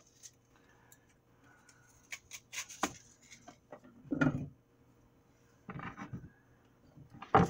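An onion being cut up with a kitchen knife among kitchen clutter: scattered light clicks and knocks, with a louder thud about four seconds in.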